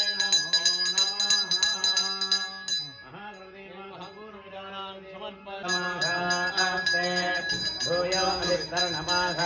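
Brass pooja hand bell rung rapidly during an arati. The ringing stops about three seconds in and starts again near the middle, over a man's voice chanting Sanskrit mantras.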